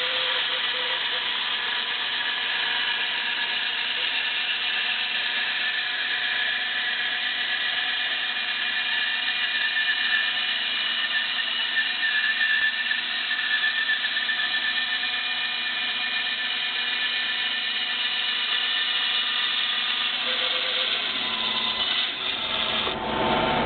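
Electric power tool motor running steadily under load, cutting a wooden ring, with a high, even whine.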